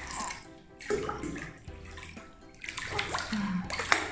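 Bathtub water sloshing and lapping as a baby is moved through it during infant swimming, busier in the second half.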